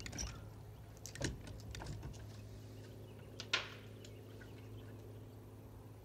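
Light knocks and taps on a fishing boat, the sharpest about three and a half seconds in, over a steady low hum.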